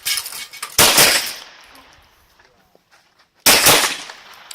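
Two shots from a 9mm Glock 17 pistol, about two and a half seconds apart, each followed by a long ringing decay.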